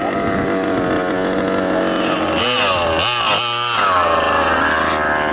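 Small two-stroke petrol engines of 1/5-scale RC cars running. One holds a steady note while another revs in quick throttle bursts about halfway through, then winds up and back down in one long sweep near the end.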